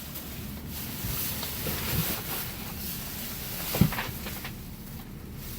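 Rustling and handling of items in a dumpster, with a few dull knocks, the loudest about four seconds in.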